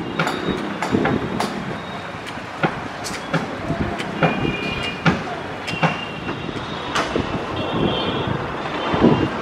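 Outdoor background noise with irregular sharp clicks and knocks throughout, and a few short high tones about four seconds in and again near the end.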